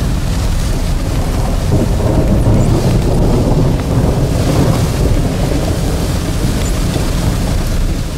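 Heavy rain pelting a vehicle's roof and windshield, heard from inside the cabin as a dense steady hiss over a deep continuous rumble.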